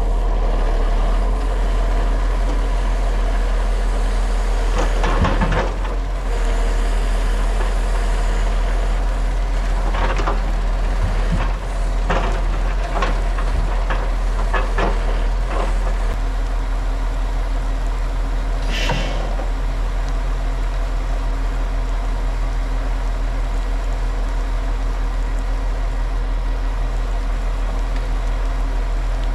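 Timber truck's diesel engine running steadily, with a series of knocks and clanks in the first half and a short hiss about two-thirds of the way through.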